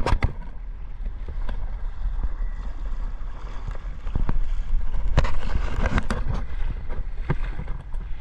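Water rushing and splashing around an inflatable tube towed behind a motorboat, with a low wind rumble on the microphone and a few sharp knocks or splashes; it gets louder in the middle.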